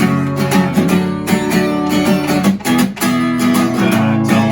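Instrumental music led by strummed acoustic guitar.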